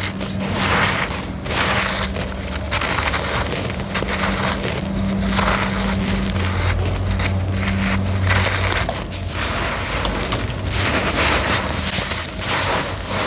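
Homemade cement crunching and crumbling under pressure: a near-continuous run of gritty crunches, one after another, loud and close.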